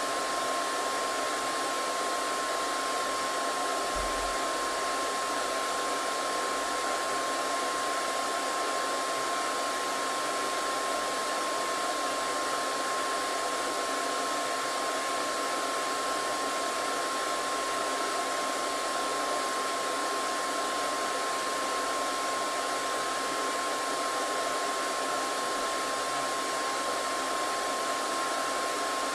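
Hair dryer running steadily: an even rush of air with a constant whine.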